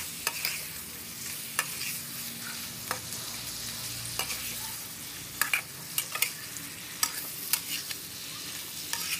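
Prawns sizzling in a wok while a metal spatula stirs them: a steady frying hiss broken by irregular sharp clinks and scrapes of the spatula against the pan.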